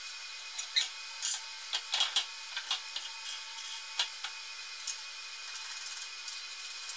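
Sharp clicks and metal clinks of quick-release bar clamps being tightened and steel parts set in place, several in the first four seconds, then only a few soft clicks.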